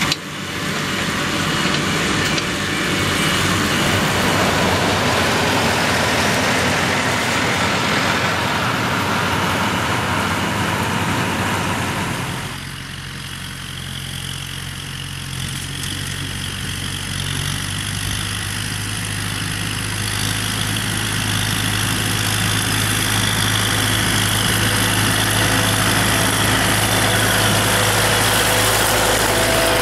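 Claas tractor running with a Claas Variant round baler working behind it. About twelve seconds in, the sound cuts to a Kubota tractor's diesel engine running steadily with a Claas Rollant round baler, growing louder toward the end.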